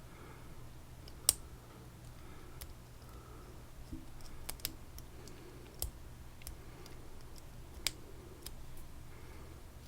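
Small sharp metallic clicks and taps, scattered irregularly, from tools working on a padlock as it is disassembled. One click about a second in is the loudest, with another strong one near the end.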